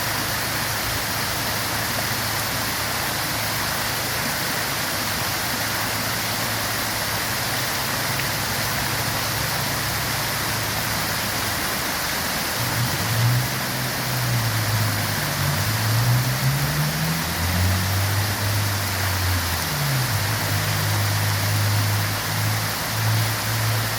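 Waterfall rushing in a steady, unbroken roar of falling water. Under it runs a low hum that starts shifting and gliding in pitch about halfway through.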